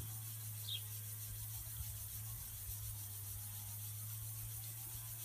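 Walking sprinkler running on water pressure: a steady hiss of water spraying from its spinning arm, with a steady low hum underneath.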